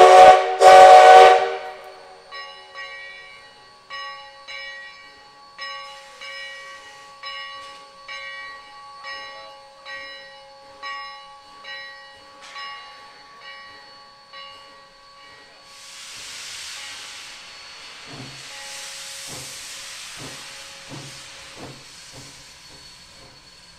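Sierra Railway No. 3's rebuilt steam whistle sounds two short blasts, the signal that the 4-6-0 steam locomotive is about to move. Then its bell rings steadily for about twelve seconds. Near the end steam hisses from the open cylinder cocks and slow exhaust chuffs begin as the engine starts off.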